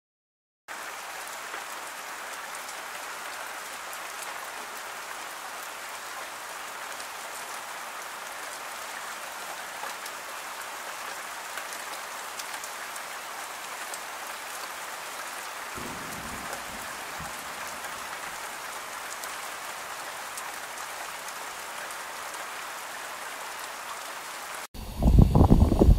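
Steady rain, an even hiss of countless drops, starting a moment in after a short silence. Shortly before the end it cuts abruptly to loud wind rumbling on the microphone.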